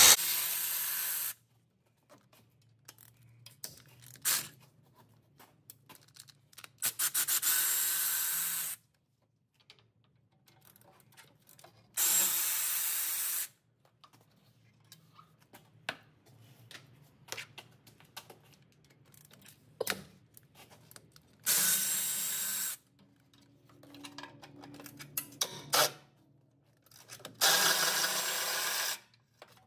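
A handheld power tool runs in five short bursts of about one and a half to two seconds each, backing out the engine heat shield's fasteners, with small clicks and knocks of handling between the bursts.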